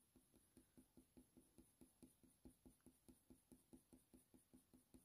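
Faint, quick, even strokes of a Polychromos colour pencil shading on hot-press watercolour paper, about four or five strokes a second.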